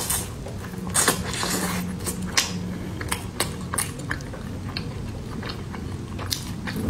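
A person biting into and chewing pan-fried pork buns (shengjian bao), a run of short crisp crunches and chewing clicks, the loudest about a second in and again around two and a half seconds.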